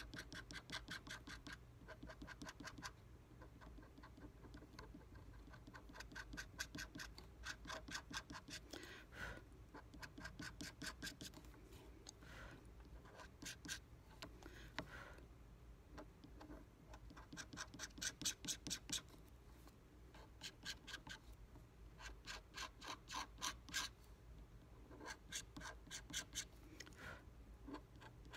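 Steel wax-carving pick scratching detail into hard green jewellery carving wax: runs of quick scraping strokes, several a second, each run lasting a second or two with short pauses between.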